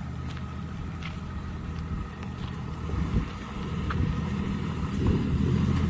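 Pickup truck engine running low and steady as the truck backs up slowly with a small trailer, getting louder near the end as it comes closer.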